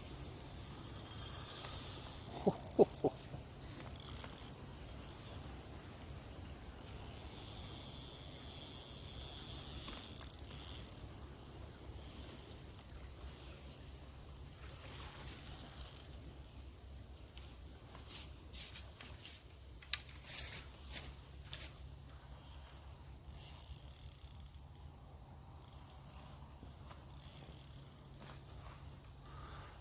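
A small bird calling over and over with short high chirps, over a steady low rumble. A few sharp clicks come close together about two and a half seconds in, louder than anything else.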